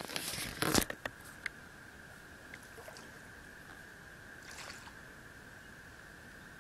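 A loud rustle with a few sharp clicks in the first second or so, then quiet lakeside ambience: gentle water lapping at the shore under a steady high-pitched hum, with a brief soft rustle about four and a half seconds in.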